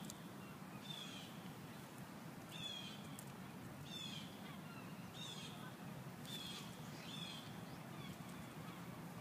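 A bird calling repeatedly: short, high, falling notes about once a second, over a faint steady low outdoor hum.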